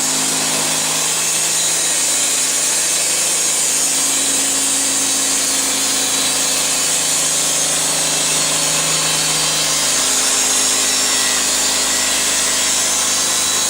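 Homemade band sawmill driven by a 15 HP engine, sawing steadily through a log. The blade makes a continuous bright hiss in the wood over the steady hum of the engine.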